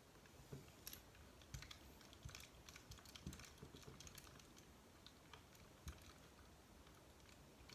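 Faint, scattered clicks and taps of small plastic RC crawler chassis parts and hardware being handled and fitted together, irregular and several a second at times.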